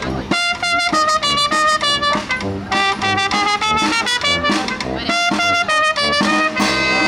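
Live brass band, trumpets and trombones, playing a brisk, bright tune in short, quickly changing notes over a steady low beat.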